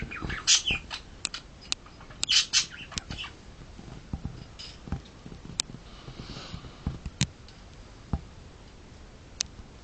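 Short harsh animal calls, about half a second and two and a half seconds in, followed by scattered sharp clicks.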